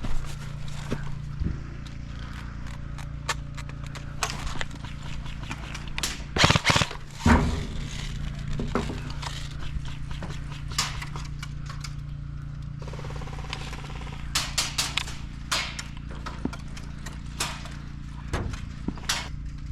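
Footsteps of a person moving slowly over rough ground: irregular crunching steps, with a few louder knocks about six to seven seconds in, over a steady low hum.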